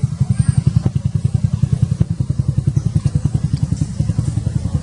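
A small engine running steadily, with a fast, even low throb.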